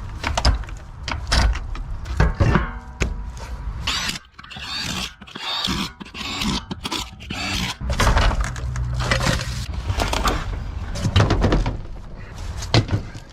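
Irregular knocks, clatters and scraping of hands and tools working on a small boat.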